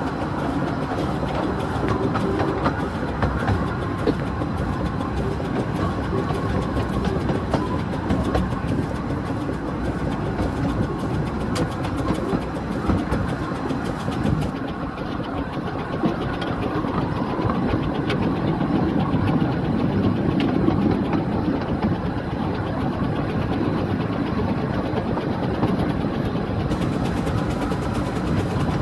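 15-inch-gauge steam locomotive running along the line, heard from on board: a steady running noise with wheels clicking over the rail joints.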